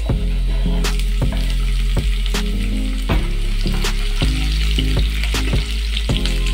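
Background music with a steady beat over garlic and chopped green chillies sizzling in hot oil in a frying pan, stirred with a wooden spatula.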